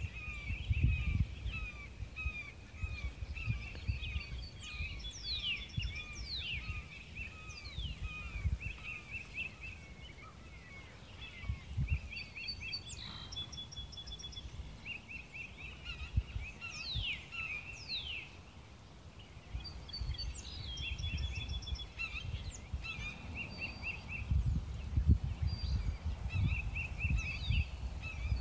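Several wild birds calling and singing: long runs of quick repeated chirps, sharp falling whistles and short trills. Gusts of wind rumble on the microphone underneath and make the loudest moments.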